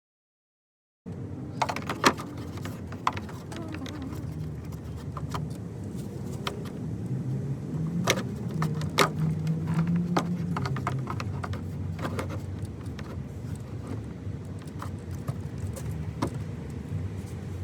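Ram 1500 EcoDiesel's 3.0-litre V6 turbodiesel running at idle after its oil change, a steady low rumble with scattered clicks and handling knocks. The pitch rises slightly for a few seconds in the middle.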